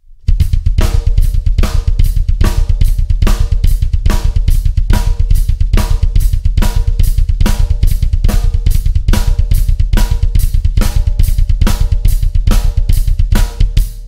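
Drum kit: a fast, continuous double bass drum ostinato of Swiss Army triplets played with both feet, under a simple groove of steady quarter notes on the hi-hat with the snare on beats 2 and 4, up to speed.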